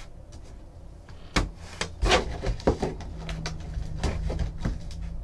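Hands handling trading cards and packs on a tabletop: a few sharp knocks and clicks with scraping and rustling between them.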